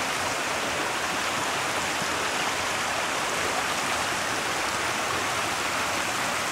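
Shallow, rocky creek running over stones and around fallen logs: a steady, even rush of water.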